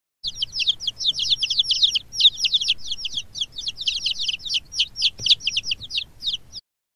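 Birds chirping, a dense run of many short, high, falling chirps several times a second that overlaps and stops suddenly near the end.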